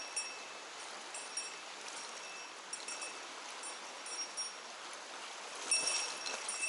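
Steady rush of a mountain stream, with short high ringing tinkles coming and going, most often near the end.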